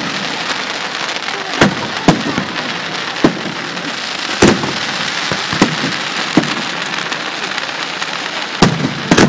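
Aerial fireworks display: shells bursting with about eight sharp bangs, roughly one a second and the loudest about halfway, over a continuous dense crackling of stars.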